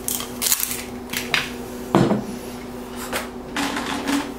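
Kitchen handling noises: rustles and scrapes with a sharp knock about two seconds in, over a steady low hum.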